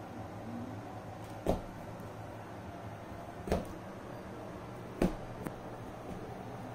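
Three short, sharp knocks a couple of seconds apart, the last followed by a fainter one, over a steady low hum.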